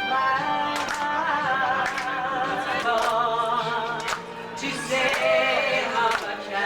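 Music: a slow song, with a wavering melodic line carried over sustained instrumental backing.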